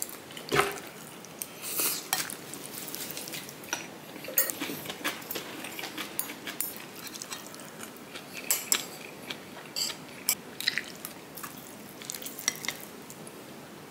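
Metal spoons clinking and scraping against a stainless steel pot and plates, in scattered light clicks, as spoonfuls of steamed egg and food are scooped up.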